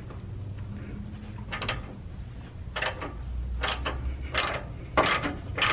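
Ratchet wrench with a 12 mm socket working a stiff crossmember bolt loose, its pawl clicking in short bursts as the handle swings back, about six times at uneven intervals, over a low steady hum.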